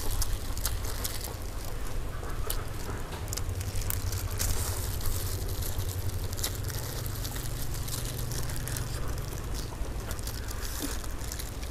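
Eating sounds up close: roast chicken being pulled apart with plastic-gloved hands and chewed, giving scattered small crackles and clicks over a steady low rumble.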